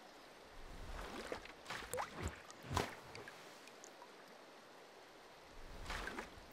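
Water splash and droplet sound effects: a cluster of splashes and plops, some with a quick upward blip in pitch, about one to three seconds in and again near the end.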